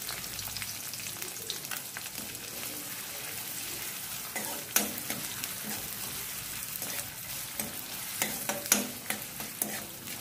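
Chopped onion sizzling in hot oil in a metal kadai at the tempering stage, with cumin and mustard seeds in the oil. From about halfway in, a metal spoon stirs it, scraping and clinking against the pan.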